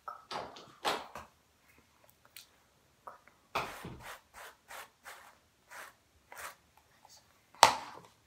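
Hairbrush drawn through long hair close to the microphone: a series of short, rough brushing strokes, at about two to three a second in the middle stretch, with a louder bump near the end.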